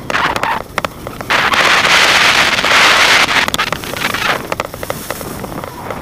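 Skis scraping and hissing over groomed, packed snow during turns, the hiss swelling loudest from about a second in to past halfway and then easing, with scattered sharp clicks.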